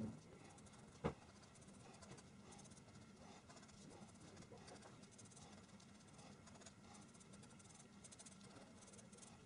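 Faint scratching of a felt-tip marker hatching quick strokes on paper, with a single sharp click about a second in.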